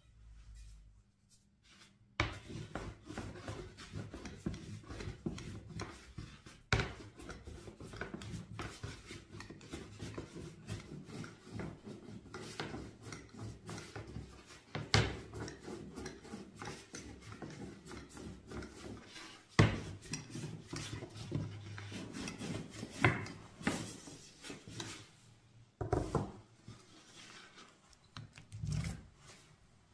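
Food being worked by hand on a wooden surface: continuous rubbing and scraping, with a few sharper knocks, starting about two seconds in.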